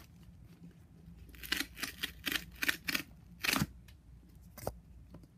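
Cardboard box's perforated tear strip being pulled open: a quick run of short ripping rasps, then one more a second later.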